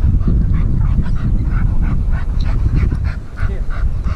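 Cocker and springer spaniels panting rapidly on their leads, about four breaths a second, over a heavy low rumble of wind on the microphone.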